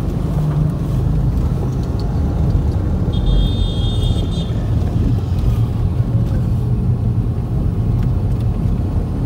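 Steady low rumble of a car's engine and tyres heard from inside the cabin while driving slowly. A brief high-pitched tone sounds about three seconds in.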